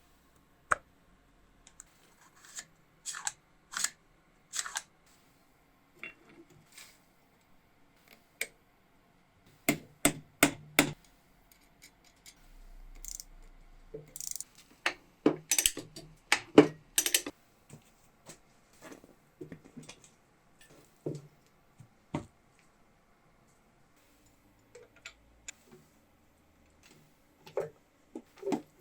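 Irregular clicks, taps and knocks of hand tools and metal parts being handled, with quick clusters of sharp knocks and a brief scraping noise about midway.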